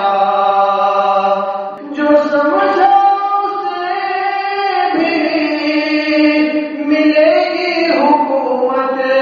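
Unaccompanied devotional singing in a slow chant, long held notes that step to a new pitch every few seconds.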